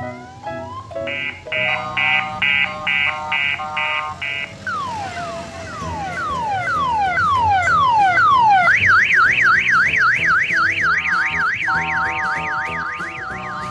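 Electronic vehicle siren-horn cycling through its tone patterns: first a pulsing multi-tone chord at about two beeps a second, then falling whoops, then about nine seconds in a fast up-and-down warble.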